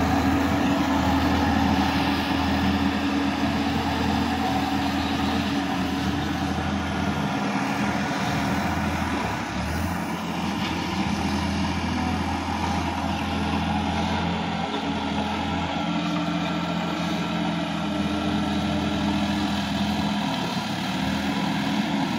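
Sonalika DI-50 RX tractor's diesel engine running steadily under load as it drags a levelling board through a flooded, muddy rice paddy.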